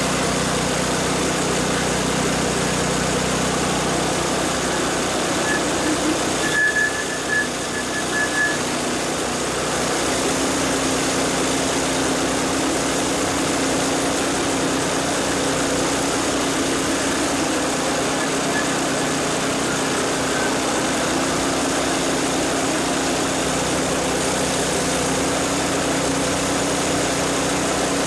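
McLane reel mower's engine running steadily, driving the reel through a back-lapping reverser so it spins against the bed knife with lapping compound applied: the reel is being back-lapped to sharpen it. A few brief high squeaks come about seven seconds in.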